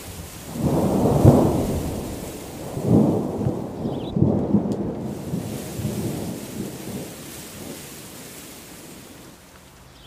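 A roll of thunder rumbling in several surges over the first few seconds, then slowly dying away, over a steady hiss.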